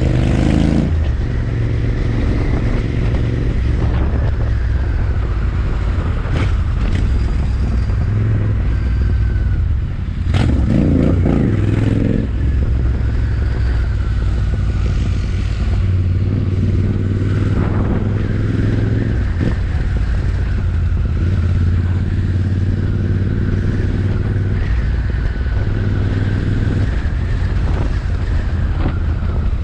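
Royal Enfield Interceptor 650's parallel-twin engine and exhaust running loud and steady, with a brief rise in revs about ten seconds in.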